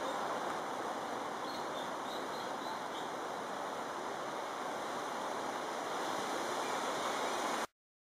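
Steady rushing outdoor background noise, with a few faint high chirps, likely from a small bird, about one and a half to three seconds in. The sound cuts off abruptly just before the end.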